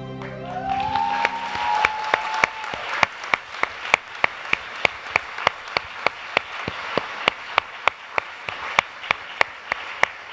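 Audience applauding and cheering, with one person's close, sharp claps standing out at about three a second. One cheer rises in pitch about half a second in.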